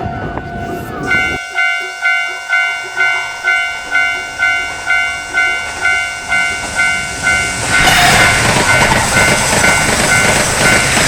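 Railway level-crossing warning bell ringing in an even pulse, about two strikes a second, starting about a second in. About eight seconds in, a passing train comes in as a loud rushing noise while the bell keeps ringing.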